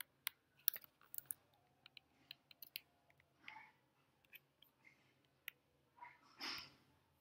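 Faint computer keyboard keystrokes: scattered short clicks, thickest in the first three seconds, then sparser, as a Composer install command is typed into a terminal and entered. A short soft noise comes about six and a half seconds in.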